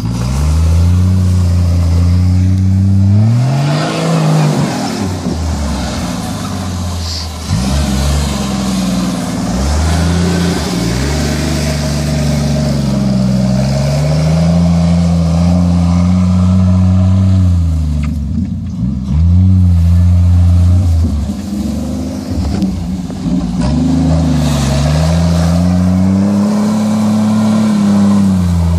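1977 Jeep CJ-5's 3.8-litre straight-six engine working hard in low gear as the Jeep ploughs through deep snow, its revs rising and falling again and again as the driver gets on and off the throttle.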